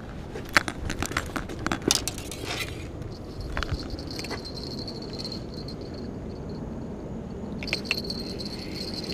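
Spinning rod and reel being handled, with a quick run of clicks and light metallic clinks over the first three seconds. From about three seconds in, a steady high-pitched insect buzz carries on to the end.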